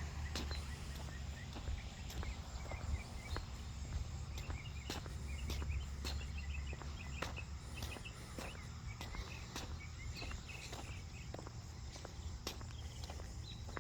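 Footsteps through a garden, as irregular soft crunches and clicks over a steady low rumble, with light high chirps of small birds or insects in the middle.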